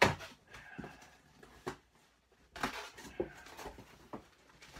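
A cardboard shipping box being opened by hand: a loud sudden noise at the start, then scattered knocks and rustling of cardboard, with another noisy burst about two and a half seconds in.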